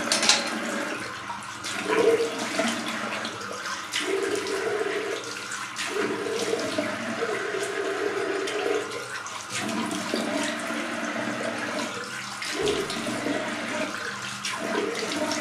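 Water running from a bathroom tap into a sink, with splashing as the face is rinsed after a shave.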